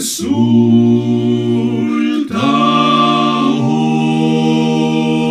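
Male vocal quartet (two tenors, baritone and bass) singing a Spanish hymn a cappella in four-part harmony, holding long chords. The voices break briefly and start a new chord about two seconds in.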